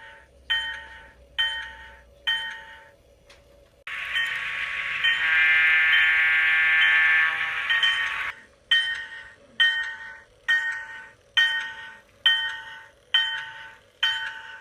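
Bachmann N scale PRR GG1 model's DCC sound decoder playing a locomotive bell, ringing steadily about once a second through its small speaker. About four seconds in, a long horn blast of about four seconds plays over the bell, and then the bell carries on.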